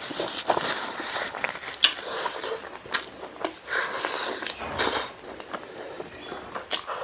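Close-up mouth sounds of eating chicken and rice by hand: wet chewing, smacking and biting meat off the bone, with frequent short sharp clicks.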